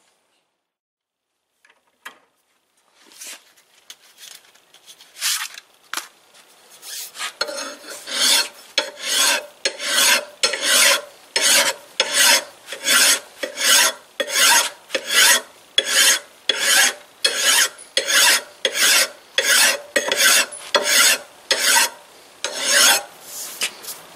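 Hand file rasping on a metal lathe part in long, even push strokes. A few loose strokes come first, then a steady rhythm of about one and a half strokes a second settles in a few seconds in.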